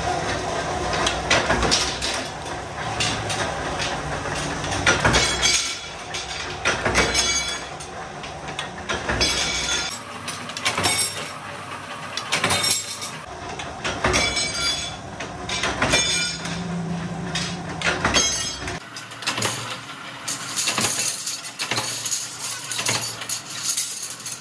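Flywheel-driven mechanical power press running and cutting steel flat bar into blanks, with repeated sharp metal clanks as the ram strikes and cut pieces and bars clink against each other.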